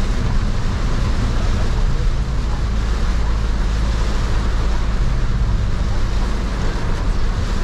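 Heavy rain on a Toyota van and its tyres hissing on the wet road, heard from inside the cabin over a steady low engine and road rumble.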